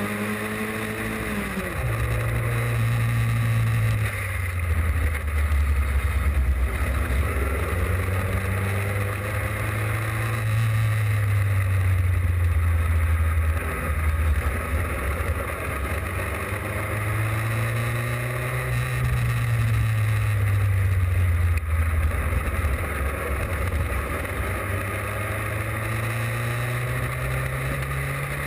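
Austin Seven racing car's small four-cylinder engine running hard under load, heard close from on board with a steady rush of wind and road noise. The engine note drops sharply about two seconds in, then climbs and falls slowly several times as the car speeds up and slows.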